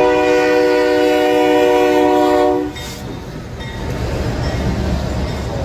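Diesel freight locomotive's multi-chime air horn sounding one loud, steady chord that cuts off about two and a half seconds in, which the uploader guesses is a fouled Leslie RS-5T. The train's rumble carries on after the horn stops.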